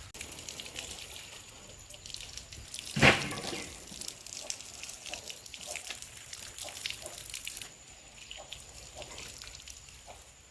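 Water splashing and dripping as a banana leaf is washed by hand, with many small irregular splashes and one louder knock about three seconds in.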